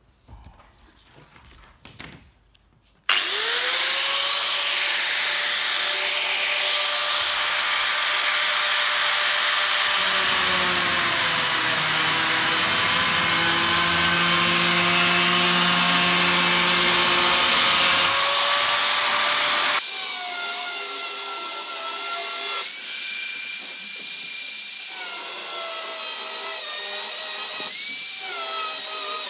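Corded oscillating multi-tool switched on about three seconds in, whining up to speed and then running steadily as its blade cuts through a polycarbonate windscreen sheet. Its pitch sags slightly under load partway through.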